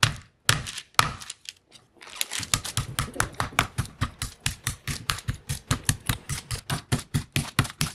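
Meat mallet pounding pork chops on parchment paper over a plastic cutting board, flattening them thin. A few spaced blows come first, then from about two seconds in a fast, even run of about five blows a second.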